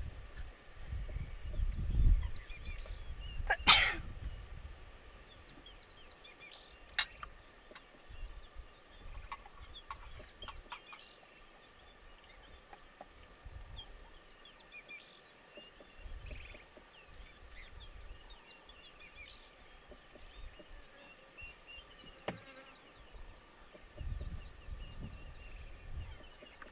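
Outdoor bush ambience with many small birds chirping and calling all through, a short loud noisy sound about four seconds in, and low rumbling at the start and near the end.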